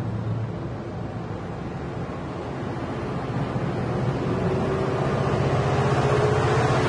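NJ Transit double-deck passenger coaches rolling past close by, a steady rush of wheels and air, with a low hum growing louder toward the end as the locomotive at the rear of the train nears.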